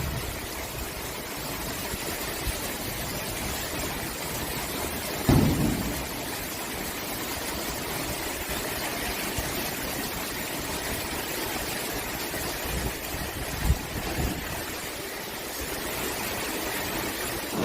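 Steady downpour of heavy cyclone rain, an even hiss, with a brief low thump about five seconds in and a smaller one later.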